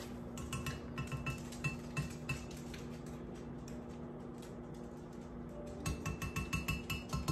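Spoon stirring frosting in a glass measuring cup, clinking against the glass about three times a second. The clinks thin out and soften in the middle, then pick back up, louder and regular, near the end, over a steady low hum.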